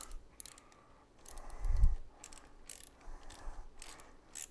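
Socket ratchet clicking in short runs as the upper radiator mounting bolt is run in. There is a louder low thump a little under two seconds in.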